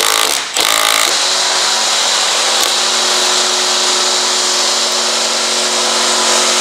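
A Milwaukee FUEL cordless impact driver hammers on a bolt, drawing up a threaded nut insert in the truck cab's sheet metal. Two short bursts come first, then a steady run of about six seconds.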